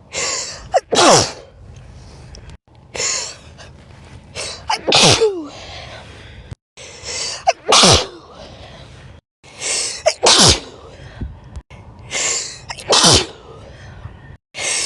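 A person sneezing five times, roughly every two and a half seconds. Each sneeze is a breathy in-breath followed by a sharp, loud burst whose voice drops quickly in pitch.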